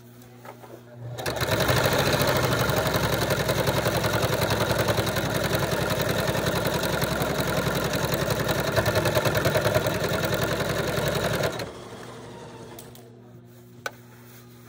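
Sewing machine stitching at speed in one continuous run of about ten seconds, starting about a second in and stopping abruptly; a faint click follows near the end.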